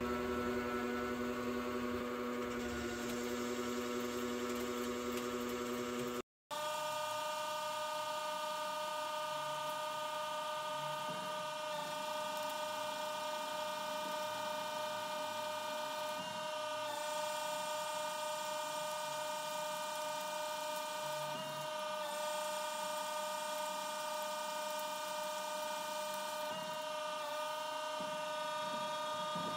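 CNC lathe running: a steady machine whine from the spindle while a tool faces and turns a rusty steel bar. The sound cuts out for a moment about six seconds in, then comes back as a steady whine at a higher pitch.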